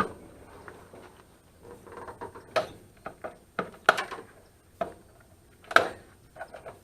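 Sharp clicks and knocks of hand tools working on a dehumidifier's metal and plastic parts, scattered unevenly about every half second to a second: wire cutters snipping through its wiring and parts being handled.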